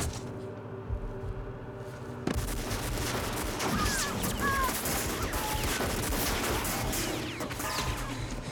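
Film soundtrack of rapid gunfire, a dense run of shots and impacts. It breaks in suddenly about two seconds in over a low droning score and runs on until near the end.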